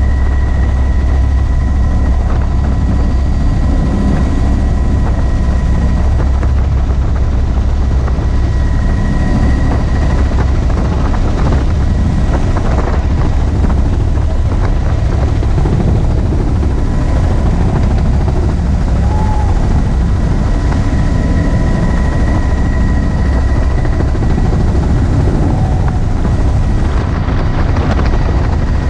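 Helicopter in flight heard from the open, doors-off cabin: steady loud rotor and engine noise with a constant deep drone, a faint steady high whine, and wind rushing in through the open doorway.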